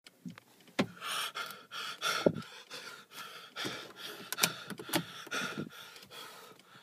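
A person breathing hard in quick, uneven gasps and pants, with a few sharp clicks.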